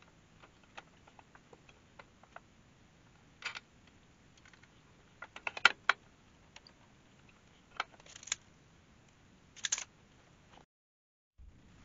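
Scattered clicks and knocks of a band saw's aluminum resaw fence being handled, slid and clamped on the saw table. The sharpest clacks come in a cluster about halfway through, followed by two short scrapes near the end.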